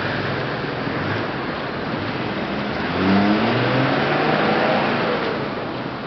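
Dense city road-traffic noise. About three seconds in, a motor vehicle's engine climbs in pitch as it accelerates; this is the loudest part.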